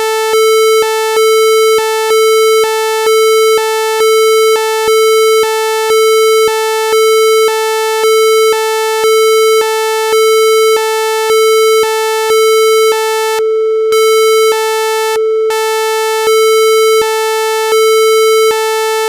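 Synthesized emergency-alert tone for a mock EAS broadcast: a loud, steady buzzy tone with a second, higher tone switching on and off in an uneven run of short and long pulses, about one a second.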